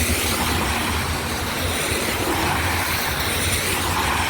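Vehicle engine running steadily, a low hum under an even hiss.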